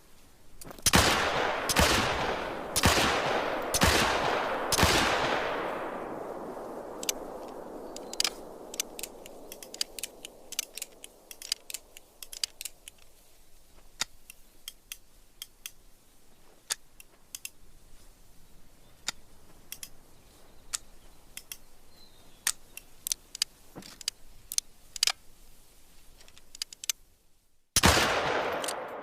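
.45 cavalry revolver firing five shots about a second apart, each with a long echoing tail, followed by a long run of small sharp clicks and then one more shot near the end.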